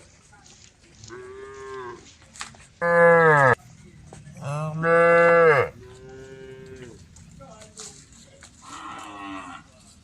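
Cows mooing: about five moos, the two loudest in the middle, each held at a steady pitch and falling off at its end.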